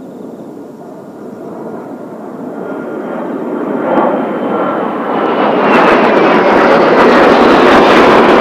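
Kawasaki T-4 jets' turbofan engines, a rushing jet noise growing steadily louder as they approach, with a faint whine sliding slowly downward in pitch.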